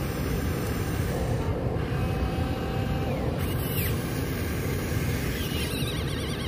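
Radio-controlled model excavator running with a steady low mechanical rumble as its arm and bucket move, with faint short whines over it.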